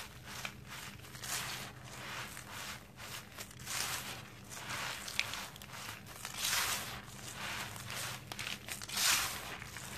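Dry sand-and-cement mix crunching and crumbling as fingers press, squeeze and rub through it: repeated gritty hissing swells every second or two, with small crackles.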